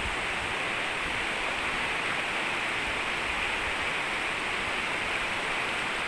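Shallow, clear mountain stream flowing and rippling over rocks: a steady, even rushing hiss.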